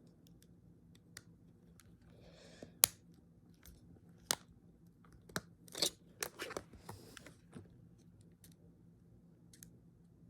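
Plastic clicking and scraping as a Samsung phone's back cover is pushed and pressed to snap it back on. The cover won't seat. The sharpest click comes about three seconds in, with a run of irregular clicks through the middle.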